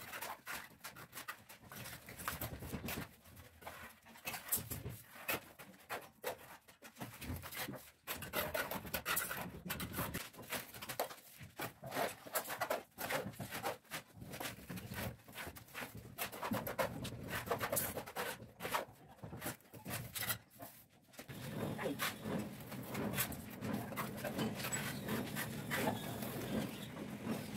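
Masons' steel trowels scraping up cement mortar and casting and spreading it on a brick wall: a run of irregular short scrapes and slaps, busier and more continuous near the end.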